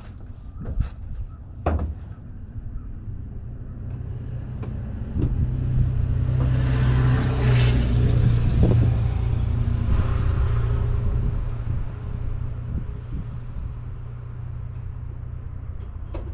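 Steady low motor-vehicle rumble that swells louder for several seconds in the middle and then fades, with a few sharp clicks near the start.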